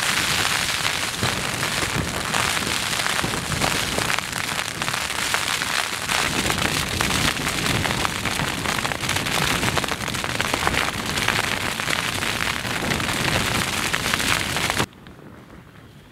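Heavy rain pelting a thin tent flysheet, heard from inside the tent, a dense, steady patter. About fifteen seconds in it cuts off suddenly to a much fainter background.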